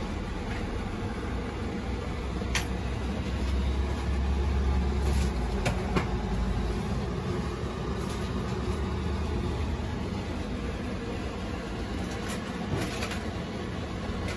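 Steady low rumbling noise, swelling a little about four seconds in and easing off, with a few faint clicks.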